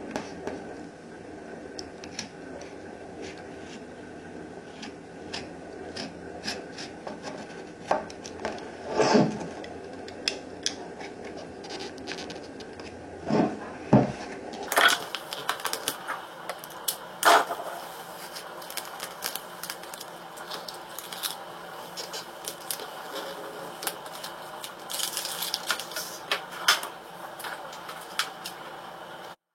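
Irregular sharp clicks and short scrapes of hand tools working vinyl wrap film, from trimming and tucking the edges, over a steady low hiss. The sound cuts off abruptly near the end.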